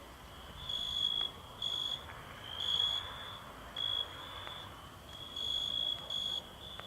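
Crickets chirping: repeated high-pitched trills, some short and some nearly a second long, with brief gaps between them.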